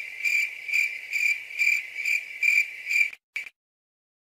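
Cricket-like insect chirping: a steady high trill pulsing about twice a second, cut off abruptly about three seconds in, with one short last chirp after.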